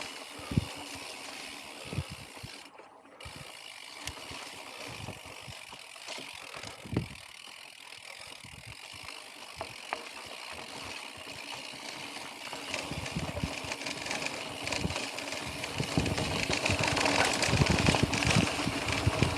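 Full-suspension mountain bike ridden over a dirt trail: rolling tyre noise and rattle from the bike, with a few sharp knocks, growing louder and rougher over the last several seconds.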